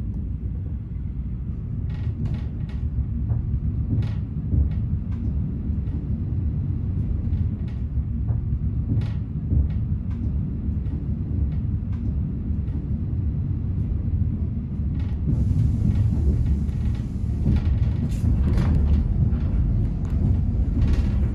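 Inside a Class 810 diesel railbus train pulling away: a steady low rumble of engine and running gear that grows a little louder as it gathers speed, with short clicks and clacks from the wheels over rail joints and points.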